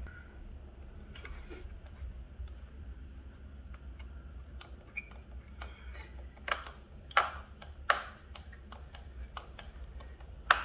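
Scattered light clicks and taps from hands handling a fabric elephant-trunk drainer as it is fitted over the drain outlet on a RIB's transom, with a few sharper clicks in the second half, over a low steady hum.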